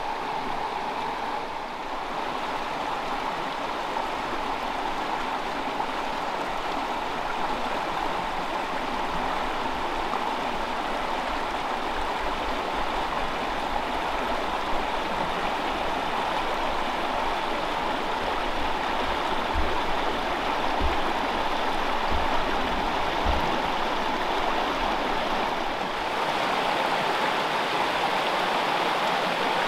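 Small freestone mountain stream running over rocks: a steady rush of flowing water.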